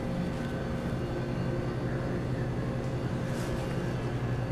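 A steady low hum over a faint even background noise, unchanging throughout.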